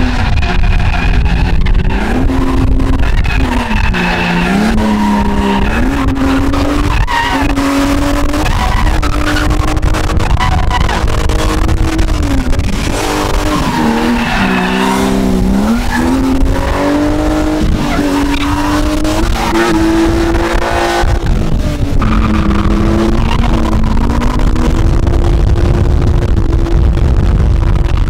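Drift car's engine revving hard, its pitch climbing and dropping back again and again, with tyres skidding on the pavement.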